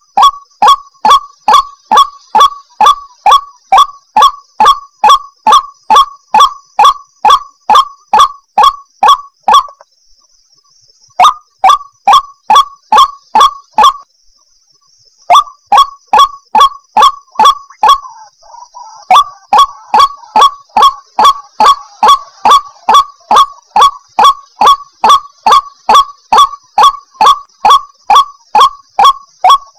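White-breasted waterhen (ruak-ruak) calling a loud, rhythmic series of short harsh notes, about two to three a second, broken by two brief pauses, one near the third of the way in and one about halfway through; a lure call used to draw in wild waterhens.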